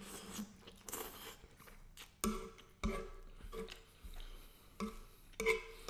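Close-up chewing and mouth sounds of a person eating shrimp pasta: irregular short clicks and smacks, a few sharper ones spaced through.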